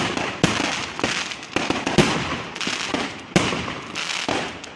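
Fireworks going off in quick succession: a string of sharp bangs, roughly two a second, with crackling between them.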